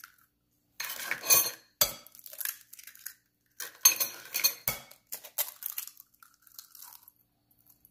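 Raw eggs cracked one after another on the rim of a glass mixing bowl: several sharp taps and knocks with shell crackle as each egg is broken and dropped in.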